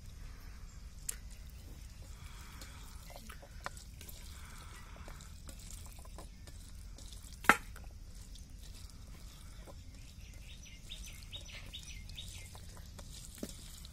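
A hand mixing rice with country-chicken rasam on a steel plate: faint wet squishing with scattered light clicks, and one sharp click about halfway through.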